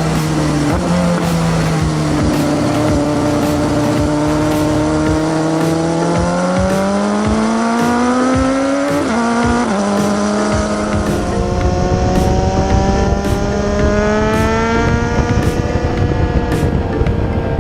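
Sport motorcycle engine accelerating, its pitch rising steadily, dropping sharply at a gear change about nine seconds in, then climbing again.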